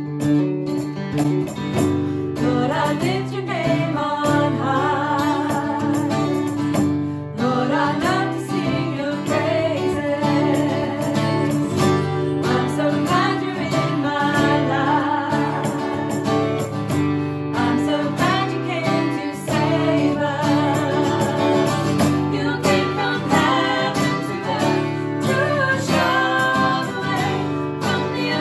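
Acoustic guitar strummed under women's voices singing a worship song. The singing comes in a couple of seconds after the guitar.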